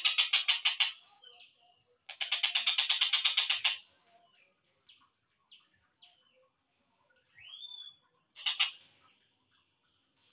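Slowed-down recording of a tengkek buto kingfisher calling: a fast rattling trill of even, rapid notes that stops about a second in and comes again from about two seconds to nearly four seconds. After it come a few scattered short chirps, a rising whistle near eight seconds, and a brief sharp call just after.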